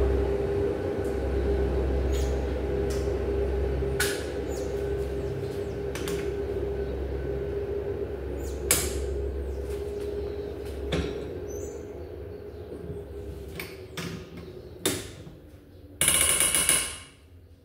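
A steady machine hum that slowly fades away, with scattered sharp knocks of tools on metal, and a short loud noisy burst near the end.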